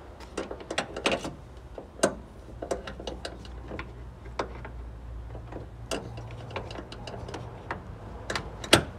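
Scattered small plastic and metal clicks and knocks as a bonnet gas strut is pushed back onto its mount beside a BYD Atto 3's plastic frunk, with one sharp, loud click near the end, over a faint low steady hum.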